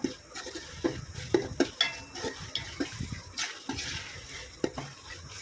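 A ladle stirring and scraping ground masala paste frying in oil and ghee in a pot, with irregular clicks and knocks of the ladle against the pot over a light sizzle.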